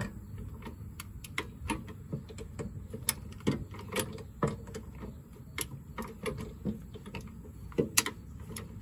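Sharp, irregular metallic clicks, about one or two a second, from a ratcheting wrench working the rear shock's lower mount bolt.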